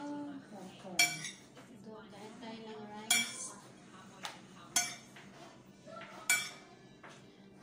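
Metal spoon clinking against plate and bowl while rice is served, four sharp ringing clinks about a second and a half apart with a smaller tap between them.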